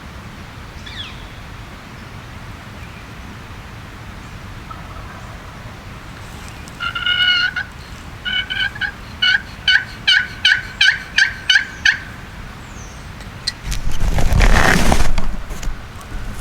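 Wild turkey gobbling about seven seconds in, followed by a run of about nine evenly spaced yelping notes, a bird working its way toward the blind. Near the end there is a loud burst of rustling noise.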